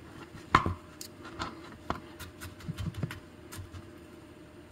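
A 6-inch ceramic chef's knife chopping garlic cloves on a cutting board: irregular sharp knocks of the blade against the board, the loudest about half a second in, growing sparse near the end.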